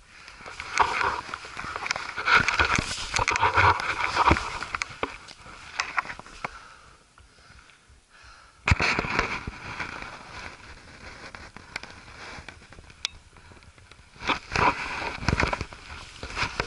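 Footsteps scuffing and crunching over rocky, gravelly ground, with the rustle and knocks of clothing and gear against a body-worn camera. The sound dips briefly and then comes back with a sudden knock about nine seconds in.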